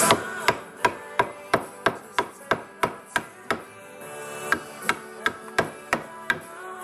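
A wood chisel driven into a wooden windmill blade by repeated sharp blows, about three knocks a second, with a short pause around four seconds in. The chisel is knocking out chunks of wood between bandsaw cuts.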